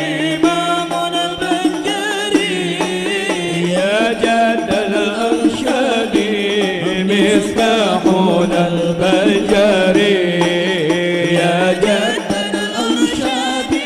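A man singing a slow, ornamented Arabic devotional refrain in a wavering, melismatic line, with hand-struck frame drums beneath.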